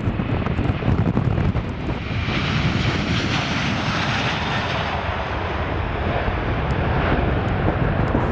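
Airbus A330-200 twin-engine jet airliner at takeoff power: a steady deep roar of the engines, with a harsher hiss that swells from about two seconds in and is strongest around lift-off, then eases as the aircraft climbs away.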